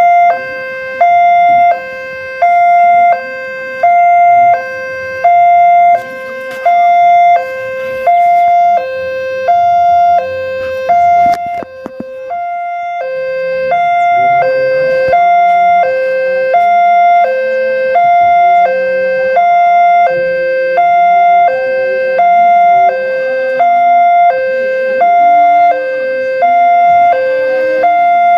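Railway level-crossing warning alarm sounding: an electronic two-tone chime alternating high and low about twice a second, signalling that a train is approaching and the barriers are down. It breaks off briefly just before halfway, and a lower engine drone comes in underneath from then on.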